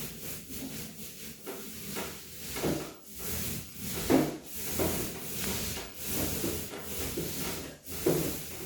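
Repeated rubbing and scraping strokes on a surface, irregular, roughly one or two a second, with a few louder strokes.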